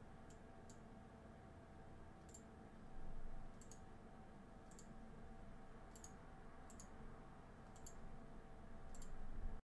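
Faint computer mouse clicks, about ten spread irregularly, over a low steady hum, with a brief low rumble about three seconds in. The sound cuts to dead silence near the end.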